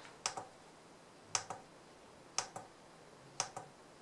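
Keypad button on a JINHAN JDS2023 handheld oscilloscope being pressed four times, about a second apart, each press a quick double click. The presses step the horizontal timebase.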